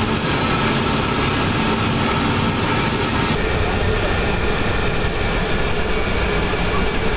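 Steady jet engine and airflow rumble inside a KC-135 Stratotanker. About halfway through it changes to a deeper rumble with less hiss.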